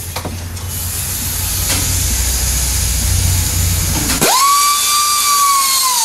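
Pneumatic grinder clearancing the upper control arm where it was contacting the subframe. For about four seconds there is a steady hiss with a low drone. Then the tool spins free in a high, steady whine that starts to drop in pitch at the very end.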